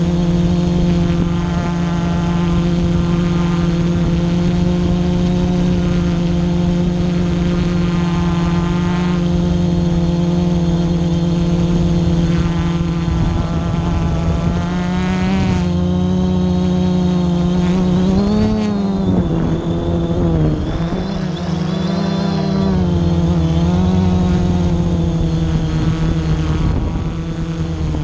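Quadcopter drone's electric motors and propellers humming steadily, heard close up from the drone's own camera. The pitch wavers up and down in the second half as the drone manoeuvres.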